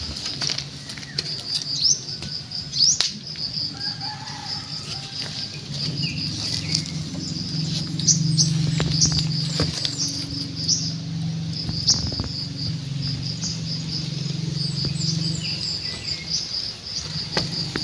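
Insects chirping in a steady rapid pulse with a few short bird chirps over it, and close scuffling and rustling of kittens play-fighting on dirt. A low hum comes in through the middle.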